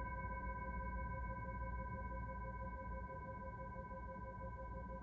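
Singing bowl ringing on after being struck: a steady, sustained tone with several higher overtones above it, some of them wavering slowly, fading only a little over the seconds.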